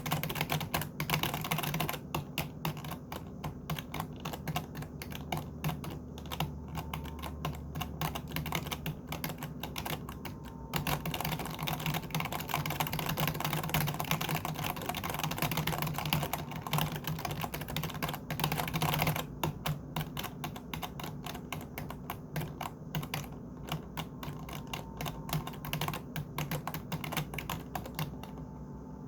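Typing on a computer keyboard: a fast, continuous run of key clicks, denser in a few brief spurts.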